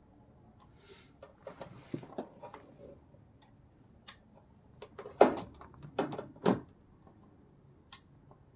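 Hands and tools working under a car's dashboard while fitting a small amplifier: rustling and scattered clicks, then three louder knocks about five to six and a half seconds in.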